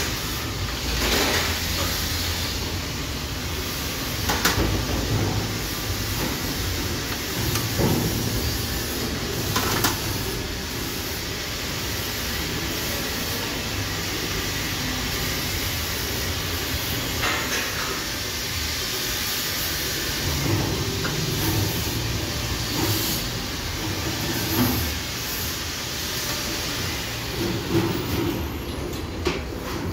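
Half-horsepower bench grinder driving a small belt sander attachment, running steadily with a low hum. A few brief knocks and scrapes come through as a workpiece is pressed to the belt.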